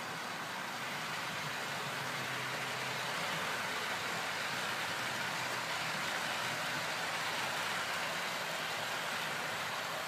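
Hornby model Class 43 HST train running along the layout track: a steady hiss and hum of the wheels and motor, growing a little louder as it passes.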